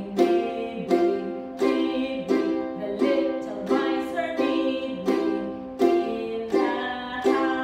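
Ukulele strummed in a steady rhythm, about one chord every three-quarters of a second, accompanying a woman singing a children's song.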